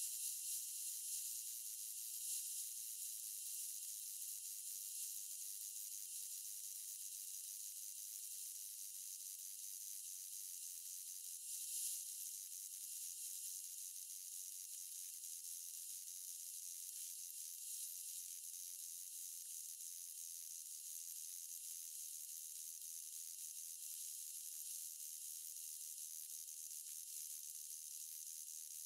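Faint, steady high-pitched hiss with no low sounds and no hammer blows.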